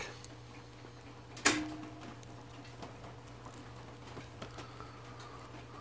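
Close handling sounds of thin cork, coated with contact cement, being pressed and wrapped around a brass saxophone palm key: faint ticks and rustles, with one sharp click about a second and a half in that rings briefly.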